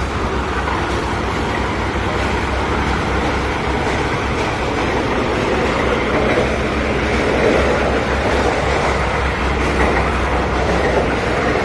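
Borewell drilling rig running steadily: a constant low engine drone under a dense mechanical noise.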